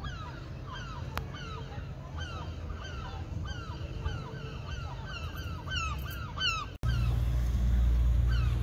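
Gulls calling over and over in a series of yelping, slurred notes above a steady low rumble. About seven seconds in the sound cuts off and a louder low rumble takes over.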